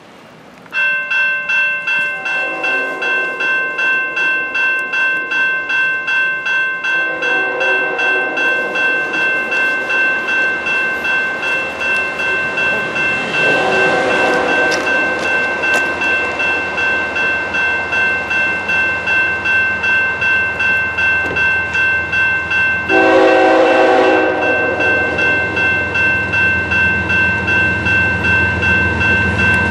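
A level-crossing warning bell starts about a second in and dings steadily, about twice a second. Over it, the horn of the approaching CP GE ES44AC-led freight train sounds several blasts, growing louder as it nears the crossing.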